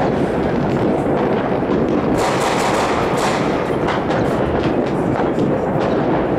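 Many fireworks going off at once at a distance, blending into a continuous rumble of overlapping bangs and crackles, with sharper reports standing out every so often.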